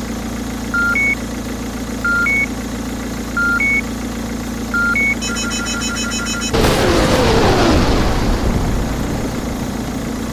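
Sound effects for an animated multiple rocket launcher truck: a heavy vehicle engine idling steadily while a low-high two-tone electronic beep repeats about every second and a half. Just past five seconds comes a fast run of high beeps. About six and a half seconds in, a loud rushing blast with a falling tone fades over about two seconds as the engine keeps running.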